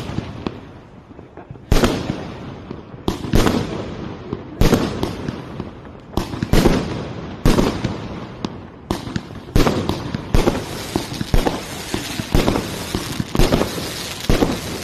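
Fireworks going off: an irregular run of sharp bangs from aerial shells bursting overhead, sometimes several a second, with a short lull near the start.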